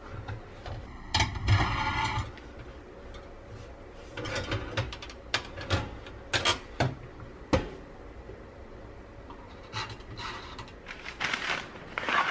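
Clicks and metallic clanks as a toaster oven door is opened and its metal baking tray of granola is handled. Near the end there is paper rustling as a sheet liner is spread over a tray.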